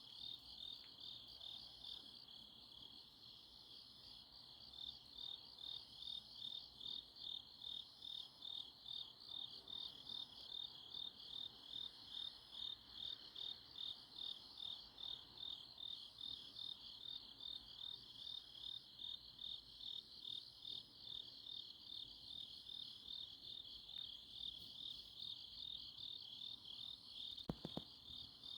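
Autumn grass insects, crickets, chirping at night in a steady chorus of high, evenly pulsed trills. A single brief click sounds near the end.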